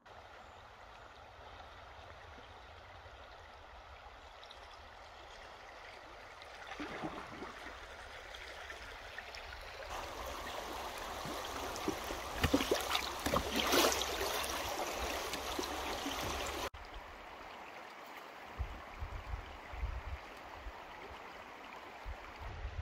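Rushing river water. It starts as a steady hiss, grows louder with splashing to its peak about 12 to 14 seconds in, then drops suddenly to a quieter flow.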